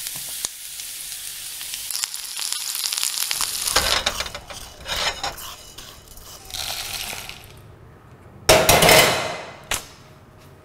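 Whole spices and dried red chillies dropped into a pan over a gas flame, sizzling steadily, with a few short knocks. Near the end comes a loud, sudden rush of noise that dies away within a second.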